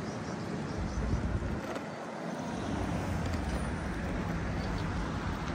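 City street ambience with road traffic passing, and wind buffeting the phone's microphone in gusts, strongest about a second in and again from about halfway on.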